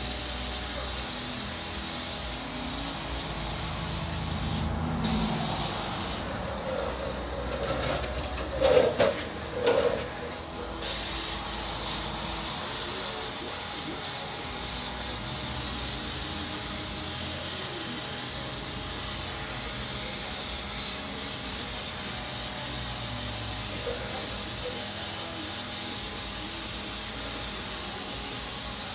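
Compressed-air spray gun hissing steadily as it sprays thinned Raptor bed liner onto a jetski hull. Near the middle the hiss drops away for a few seconds, with a few louder knocks, then it resumes.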